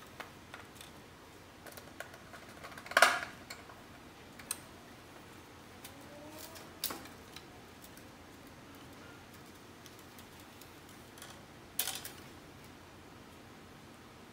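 Scattered clicks and knocks of hands working a wire and hand tools against a plastic electrical enclosure, with one sharp, loud knock about three seconds in and two smaller ones later, between faint ticks.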